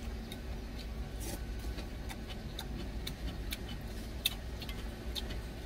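A man chewing a mouthful of stir-fried octopus: irregular soft mouth clicks and smacks, several a second apart, over a low steady hum.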